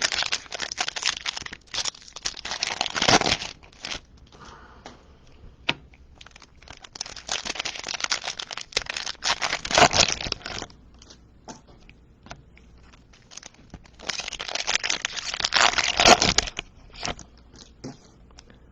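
Trading-card pack wrappers being torn open and crinkled, in three spells of crackling with small clicks and rustles in between.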